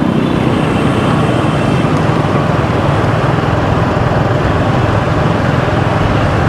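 Steady engine and road noise from riding a motorbike through city traffic.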